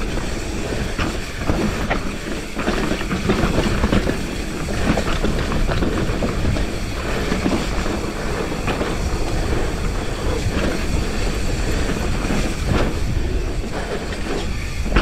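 Commencal Clash hardtail mountain bike descending a dirt trail: tyres rolling over the dirt, the bike rattling and clattering over bumps in a steady run of small knocks, with wind rushing over the microphone as a constant low rumble.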